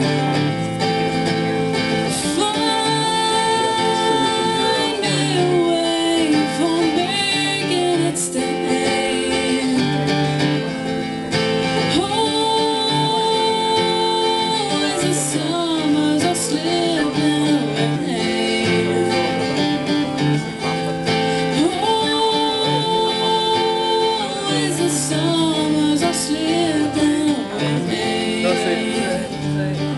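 Live acoustic guitar music with a woman singing, her long held notes coming about every ten seconds over the steady guitar playing.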